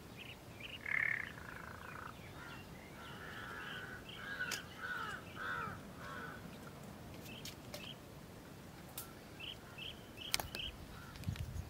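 A bird calling in short repeated notes, a group about a second in, a longer run from about three to six seconds, and a few more near the end, with several sharp clicks in between.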